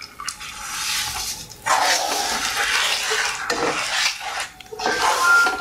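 Wooden spatula stirring and scraping a grainy besan-and-ghee mixture around a nonstick kadai as one-string sugar syrup is mixed in, in several long scraping strokes with short pauses between them.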